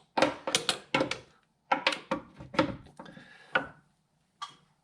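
Makita cordless impact wrench hammering in several short bursts on a tight crankshaft pulley bolt, trying to break it loose.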